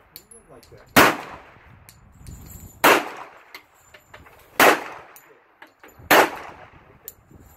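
Four pistol shots from a Smith & Wesson M&P in .45 ACP, fired one at a time, spaced a little under two seconds apart. Each is a sharp crack with a short echo trailing off.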